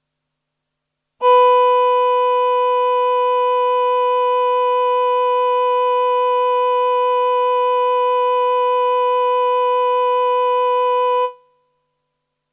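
A single synthesizer note held steady for about ten seconds, one pitch with a strong overtone an octave up, starting sharply and fading out quickly near the end.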